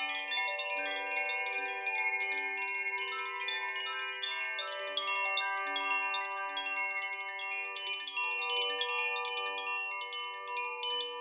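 Chimes ringing: many light metallic strikes in quick succession, their tones overlapping and sustaining into a continuous shimmer.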